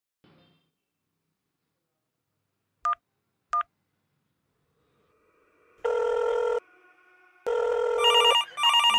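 Two short telephone keypad beeps, then a phone ringing in two tones of about a second each with a pause between, and a faster trilling ring starting near the end.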